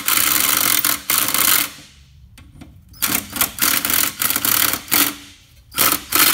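Cordless impact driver hammering as it runs bolts back into a lawn mower's blade carrier and snugs them tight. There is one long burst at the start, then, after about a second's pause, a series of short bursts.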